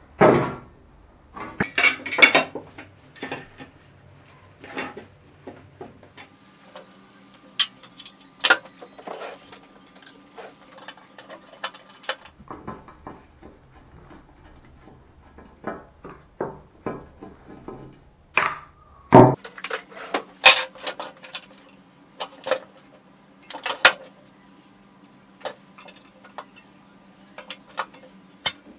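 Workbench handling noise: a Keeway RKS motorcycle exhaust and hand tools being picked up and set down on a wooden bench, with scattered metal clinks, knocks and clatters at irregular intervals. The loudest knocks come right at the start and again about two-thirds of the way through.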